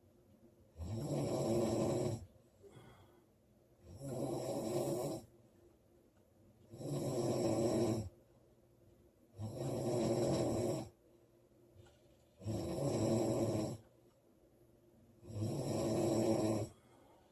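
A sleeping woman snoring loudly and regularly: six snores, each about a second and a half long, coming every two and a half to three seconds with quiet breathing gaps between them.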